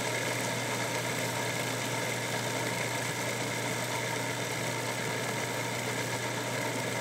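Countertop food processor running steadily, its blade spinning a crumbly raw pie-crust mixture that has not yet begun to stick together.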